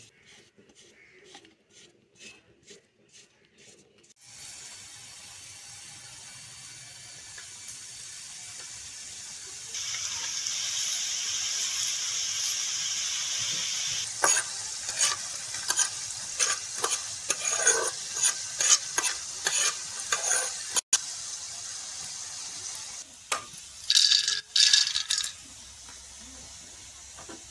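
Dough pieces deep-frying in hot oil: a steady sizzle starts about four seconds in and grows much louder about ten seconds in. From about fourteen seconds it is broken by repeated clinks and scrapes as the pieces are stirred in the pan.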